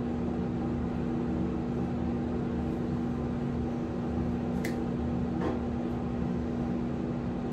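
Steady mechanical hum with a constant low tone, like a small motor or fan running, with two faint clicks a little past the middle.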